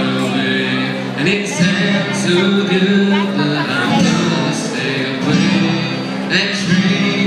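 A country song played live on two strummed acoustic guitars, with a male voice singing.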